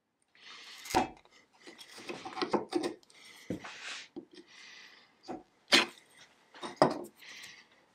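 Hand work on wood at a workbench: several rubbing or scraping strokes, broken by about four sharp knocks as pieces or tools are set down.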